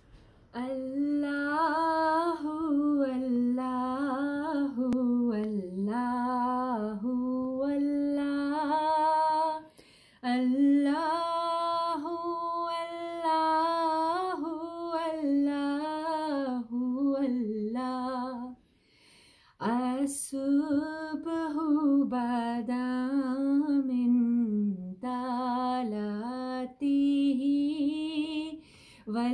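A woman singing a hamd, a devotional song in praise of Allah, solo and unaccompanied, in long drawn-out melodic phrases with two short breaks for breath.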